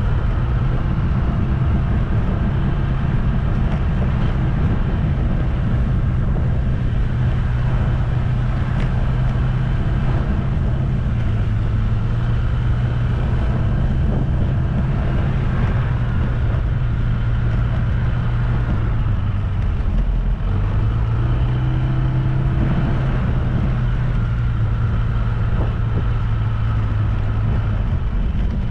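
Engine of a moving road vehicle running steadily with a low hum. About two-thirds of the way through the note drops briefly, then picks back up, as when the throttle eases and opens again.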